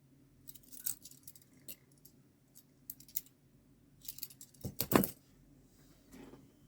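A bunch of keys jangling as it is handled, a scatter of small metallic clinks, with the loudest rattle of keys about two-thirds of the way through.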